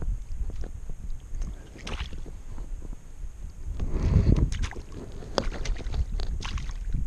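Wind rumbling on the microphone over light water splashes and sloshing as a small trout is handled in a landing net held in shallow stream water. A louder splash or gust comes about four seconds in.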